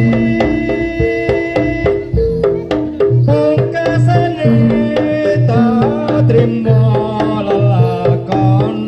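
Live jaranan gamelan music: kendang hand drums beat a quick, even rhythm over repeating tuned gong notes. About three seconds in, a wavering melody line joins.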